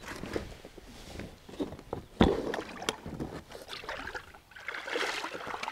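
Water sloshing around a small boat, with scattered knocks and clunks against the hull as the boat and its gear are handled; the loudest knock comes about two seconds in.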